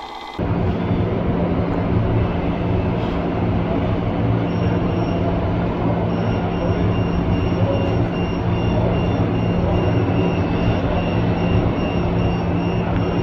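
A scale RC construction machine running: a steady, loud mechanical din with a low hum, starting abruptly. A repeating high beep joins about four seconds in.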